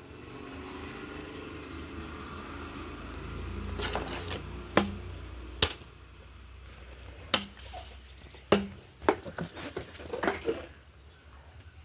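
Sharp fingernail clicks from picking lice out of hair, about eight of them spaced a second or less apart in the second half, with faint rustling of hair between them. A low, steady hum runs under the first half.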